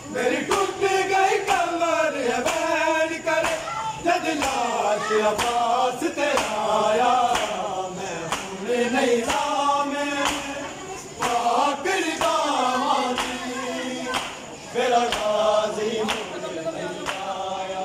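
Men chanting a noha, a Shia lament for Muharram, in unison, over a steady beat of open-hand slaps from matam, bare chests struck in time with the recitation.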